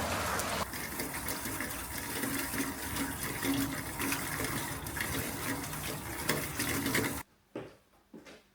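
Water running steadily from a kitchen tap, shut off abruptly about seven seconds in, followed by a few light knocks.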